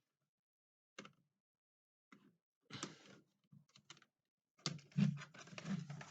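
Clicks and rattling clatter of a laptop's plastic casing and small parts being handled and worked apart during disassembly. The clicks are scattered at first, then a busy run of clicking and rattling starts about two-thirds of the way through.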